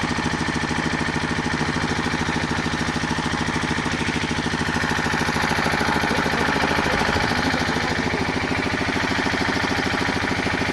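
An engine running steadily at an even, fast beat.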